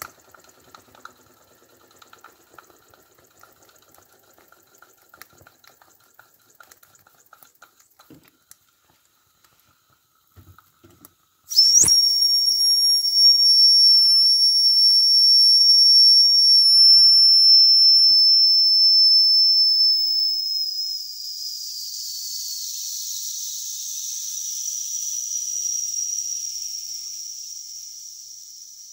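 Steam whistle on a small live-steam model engine's boiler: after faint simmering and ticking, it starts suddenly a little over a third of the way in and sounds a steady shrill tone for about nine seconds, then weakens into a breathy steam hiss that slowly fades.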